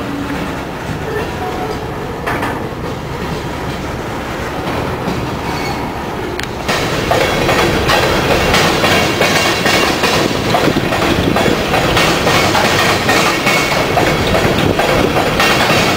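Coal train's gondola cars rolling past, steel wheels clacking over rail joints and crossing track with a steady rumble. About seven seconds in the sound gets suddenly louder and harsher, with many sharp clicks.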